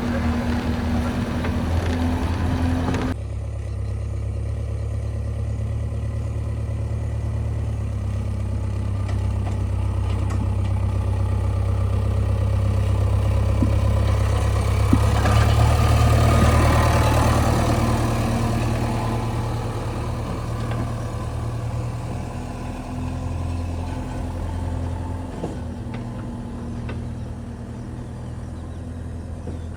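Diesel engine of heavy earth-moving machinery running steadily, with an abrupt change in its sound about three seconds in. It grows louder toward the middle, then slowly fades.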